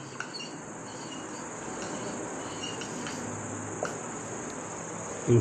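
A steady high-pitched insect-like trill over a low, even background hiss, with a few faint ticks.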